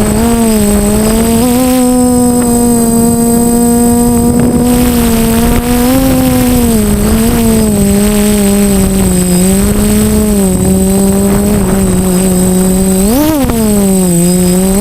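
DJI F450 quadcopter's motors and propellers buzzing in flight, the pitch wavering with throttle changes and jumping up sharply and back about 13 seconds in. A thin, steady high-pitched tone runs underneath.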